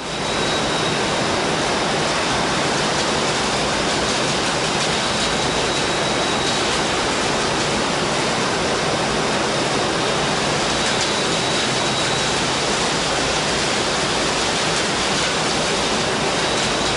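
Steady industrial roar of glass furnace batch-charging machinery, an even rushing noise with a faint high whine, starting and stopping abruptly.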